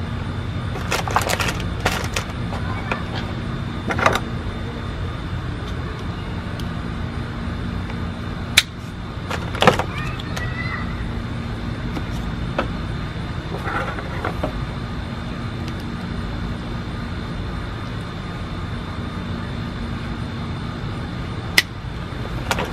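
Plastic Hot Wheels track pieces being handled: scattered clicks and clatters, a few of them sharp, over a steady low hum.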